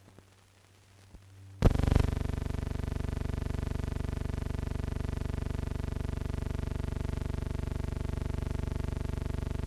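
Steady buzzing hum, made of a low tone and its many overtones with a fast regular flutter, that starts abruptly with a click about a second and a half in: the kind of hum heard on an old film soundtrack transfer.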